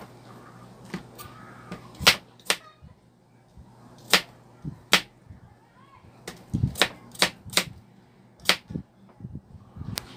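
Kitchen knife slicing a peeled cucumber on a plastic cutting board: irregular sharp taps as the blade cuts through onto the board, with a quick run of cuts in the middle.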